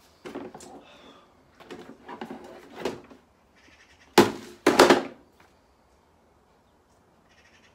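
Paper instruction leaflet rustling as it is handled, then two loud thumps about half a second apart, about four seconds in.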